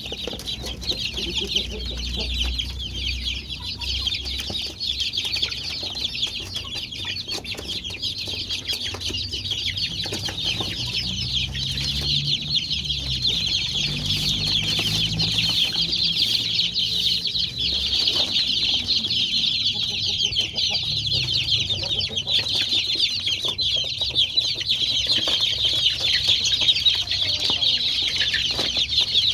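A flock of about forty young kampung chickens, five weeks old, peeping continuously, with many high-pitched cheeps overlapping into a steady chorus.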